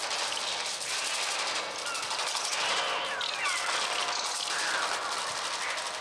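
A dense flock of birds screeching over a constant rapid flutter of flapping wings, made electronically on a Mixtur-Trautonium rather than recorded from real birds. Short falling screeches come every second or so over the continuous flutter.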